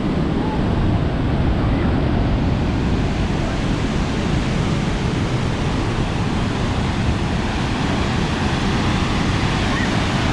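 Steady roar of a waterfall in flood, heard from inside its spray, with wind buffeting the microphone. The wind is driven by the falls themselves.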